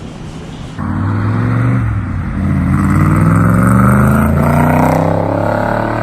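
Car engine revving, cutting in suddenly about a second in, its pitch rising and falling through several revs.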